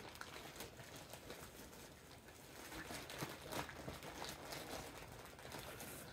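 Faint crinkling of plastic packaging with scattered light clicks as a pack of artificial nails is opened and handled.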